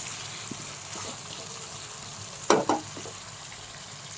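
Chicken masala sizzling in a kadai as potatoes are stirred through it, with a steady frying hiss. About two and a half seconds in comes one brief, louder scrape.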